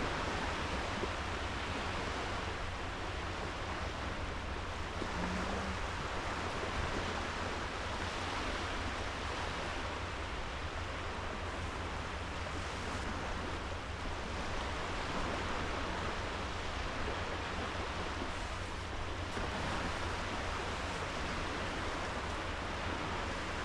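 Small sea waves washing onto a sandy beach, a steady surf hiss that swells gently every few seconds.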